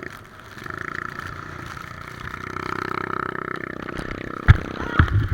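Three-wheeler's engine running under way, its pitch swelling and easing slightly midway. Three loud low thumps come near the end.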